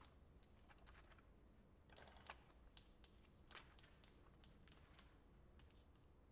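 Near silence: quiet room tone with faint, scattered clicks and scratchy strokes, a little louder about two seconds in and again at about three and a half seconds.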